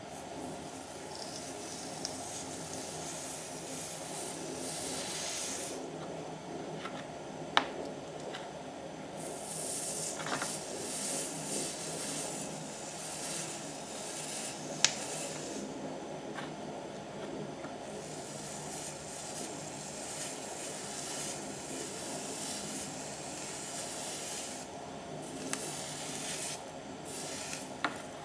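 Homemade electropolishing wand rubbed along a stainless steel weld seam, giving a hissing, fizzing scrub in long strokes of several seconds each. A few sharp clicks break in now and then.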